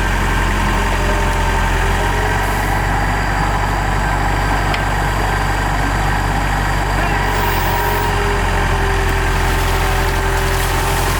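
Large excavator's engine running steadily at idle, an even low hum.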